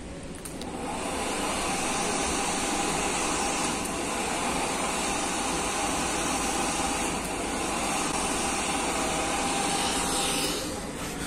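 Wall-mounted automatic hand dryer switching on when a hand is held under its sensor and blowing steadily with a rushing of air. It winds down shortly before the end.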